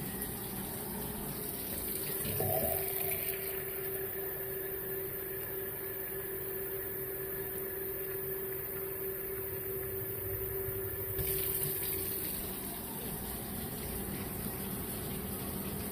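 Hot water running steadily as it fills a container for the soup, a continuous rushing with a faint steady tone through most of it that stops about twelve seconds in.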